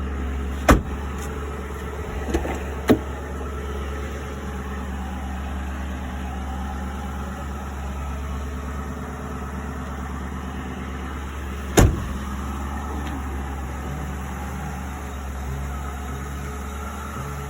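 Car engine idling steadily with an exhaust leak. Four sharp knocks or clicks cut through it, three in the first three seconds and one about twelve seconds in.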